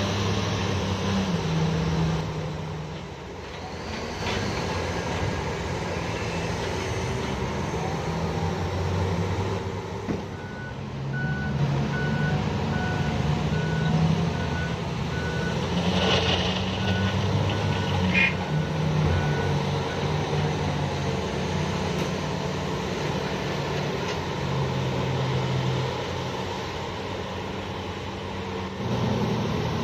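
Heavy diesel engines of a Komatsu HD785 haul truck and a PC2000 excavator running and working under changing load. In the middle stretch a reversing alarm beeps steadily, about once a second, for roughly ten seconds, and there is a short sharp burst of noise partway through it.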